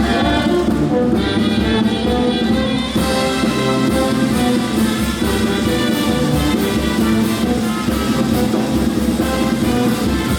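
Brass band playing marinera norteña dance music, with trumpets and trombones over a steady beat.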